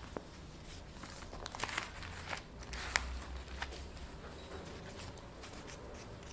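Faint rustling of thin Bible pages being leafed through, with scattered small clicks and crinkles over a low room hum.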